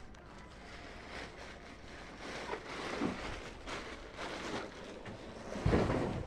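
Black plastic garbage bag rustling and crinkling as it is handled, in several swells, with a louder thump near the end.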